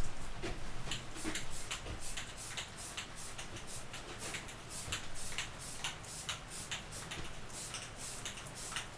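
Aerosol spray-paint can hissing in short, quick bursts, about three a second, as a coat of blue paint goes onto the forks.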